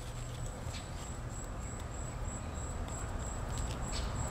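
A few faint clicks and rustles of hands working the cap of a small plastic vial among leaves, over a low rumble and a steady high-pitched whine.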